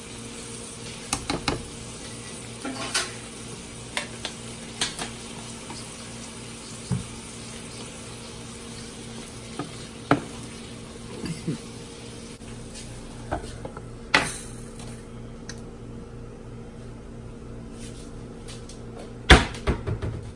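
Sliced onions, bell peppers and tomatoes sizzling steadily in olive oil in a frying pan, with a wooden spoon knocking and scraping against the pan now and then as they are stirred. Near the end a glass lid clatters onto the pan.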